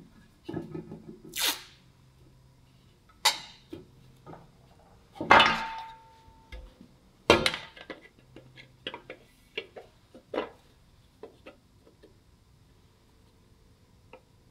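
Irregular knocks, clicks and clatter of hand tools and metal parts being handled, with three louder strikes in the middle, one leaving a short ringing tone.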